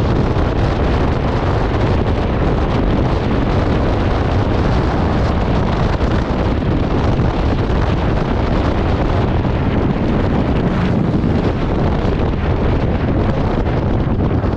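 Loud, steady wind noise blasting the camera microphone of a scooter rider moving at about 60 to 75 km/h.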